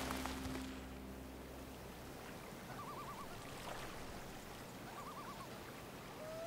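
Two short warbling bird calls, about three and five seconds in, over faint even outdoor background noise, after background music fades out in the first two seconds.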